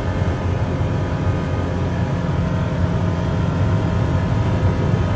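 Engine and drivetrain of an open side-by-side off-road vehicle running at a steady cruising speed, heard from the seat as a low, even drone with road and wind noise.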